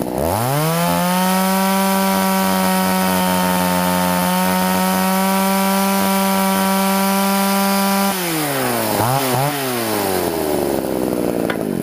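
Poulan two-stroke chainsaw engine revving up and held at full throttle for about eight seconds, its high-speed carburettor mixture just set. It then drops off, blips twice and falls back toward idle.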